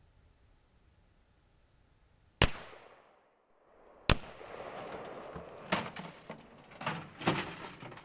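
Two gunshots about a second and a half apart, fired at a microwave target. After the second shot come a few seconds of rustling and rattling with several smaller sharp knocks.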